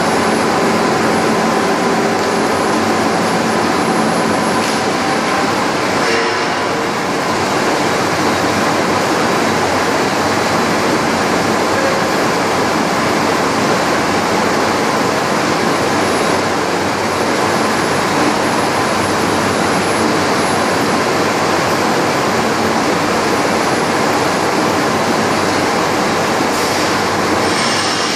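Steady, loud din of a steel rolling mill: the roller table and mill machinery running as red-hot steel bars move along the line.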